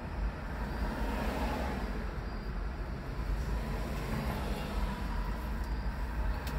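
Steady low rumble of a vehicle heard from inside a closed car cabin, with no speech or music over it.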